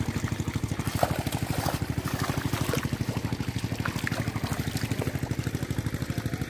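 A small engine running steadily with an even, rapid thudding of about ten beats a second, with water trickling and splashing over it.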